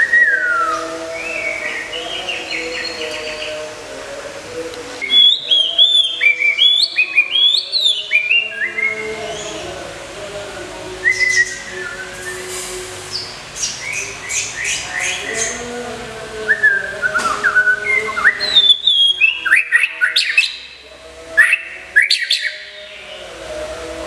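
White-rumped shama (murai batu) singing: phrases of quick whistled notes gliding up and down, mixed with sharp ticking notes, in bursts with short pauses. The busiest stretches come about a fifth of the way in and again from about two-thirds through.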